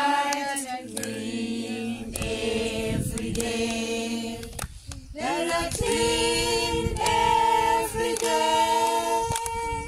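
A group of young children singing a children's song together, unaccompanied, in long held notes, with a brief break about five seconds in before the voices come back in on a rising note. Scattered hand claps sound through the singing.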